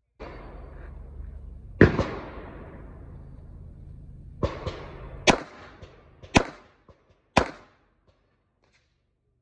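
A short high beep, as from a shot timer's start signal, then about six handgun shots from a Walther PDP pistol at irregular gaps of roughly a second. The first shot is the loudest and rings out longest.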